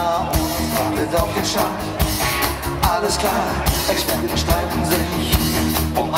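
Live rock band playing: drums, bass and electric guitar, with a singer's voice in places.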